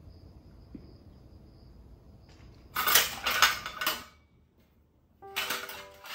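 Dishes and metal trays clattering against a stainless-steel dish-drying rack as they are lifted out. The clatter comes in two spells, starting about three seconds in and again about five seconds in.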